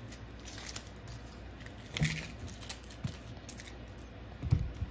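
Papery onion skin crackling and rustling as an onion is peeled by hand, with a few light knocks against a bamboo cutting board.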